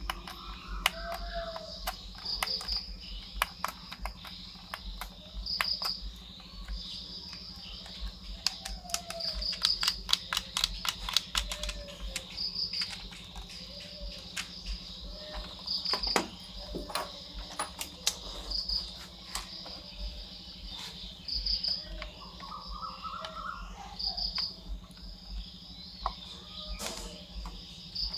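Crickets trilling steadily, swelling louder about every three seconds, over sharp clicks and taps of hands handling a plastic toy remote controller and RC excavator.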